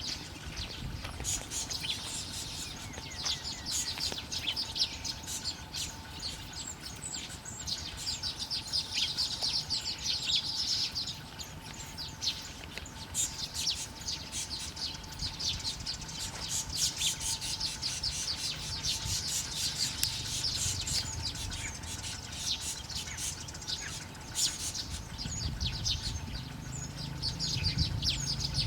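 Small birds chirping and twittering in quick high-pitched runs of notes, with denser trills in the middle.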